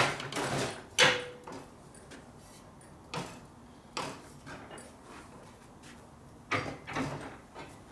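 Metal tool knocking and scraping in the end of a metal tube as it is stretched and swaged out: about six irregular knocks, one about a second in ringing briefly.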